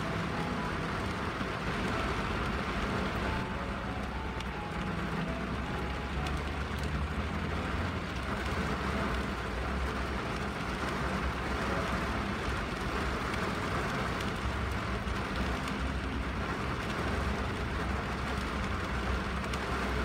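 Steady rain on a car windshield over a low rumble, with a soft melody of a few faint notes underneath. It cuts off suddenly at the very end.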